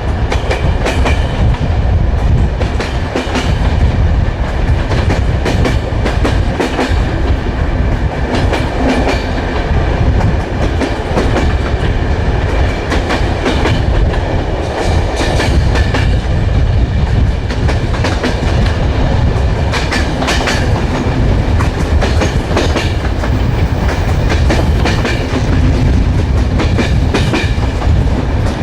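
Railway wheels running over the track: a steady low rumble with irregular clicks and clatter of the wheels over rail joints.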